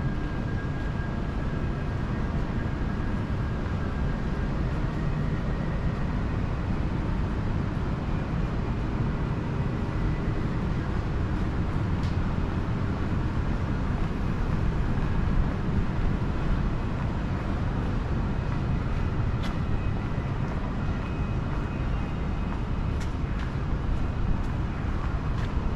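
Steady low rumble of city street noise, traffic-like, with a few faint brief clicks scattered through it.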